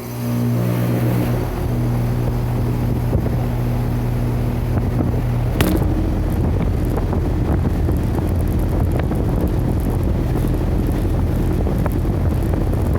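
2017 York 4-ton central air conditioner's outdoor unit starting up: at first a loud steady electrical hum. About six seconds in there is a click, the hum gives way, and the steady rush of the fan's air takes over.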